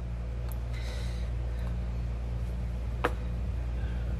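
Steady low hum under faint handling noise, with one light click about three seconds in as small plastic and metal vape-mod parts are handled.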